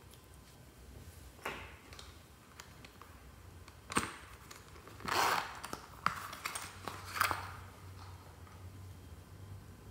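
Fluffy slime being pressed and stretched by hand: scattered sticky clicks and small pops, with one longer squish about five seconds in.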